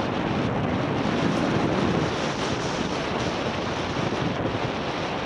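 Wind rushing over an action camera's microphone during a mountain bike ride, a steady noise with no clear knocks or tones.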